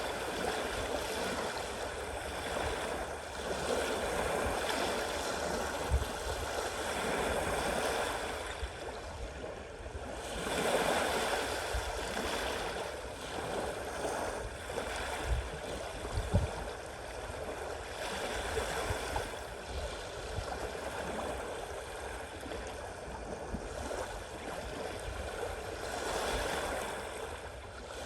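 Sea waves washing in, a steady rushing that swells and eases every few seconds, with one bigger surge about eleven seconds in. A few brief low thumps.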